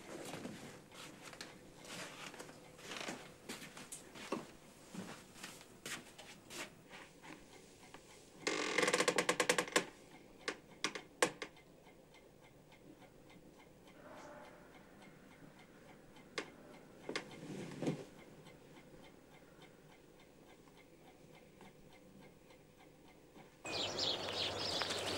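Mechanical alarm clock ticking faintly, then its bell rings rapidly for about a second and a half and is cut off, followed by a few knocks and rustles. Near the end, a steady outdoor hiss begins abruptly.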